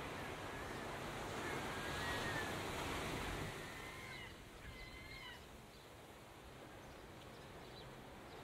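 Steady outdoor rush of wind and water, a little quieter in the second half, with a few short high wavering calls between about one and a half and five seconds in.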